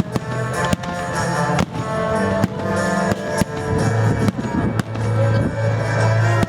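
Dramatic show music: sustained low notes and held chords with a heavy drum hit about once a second.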